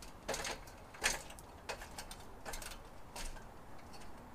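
Boots knocking and scuffing on the rungs of an aluminium ladder as someone climbs it: a string of irregular light knocks and clicks.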